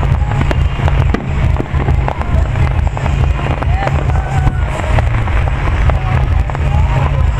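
Aerial fireworks bursting in rapid succession, with many sharp bangs and crackles over a constant deep rumble, and music playing underneath.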